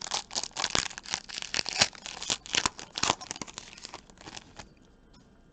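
Foil wrapper of a trading card pack being torn open and crinkled, a dense run of crackles that stops about four and a half seconds in.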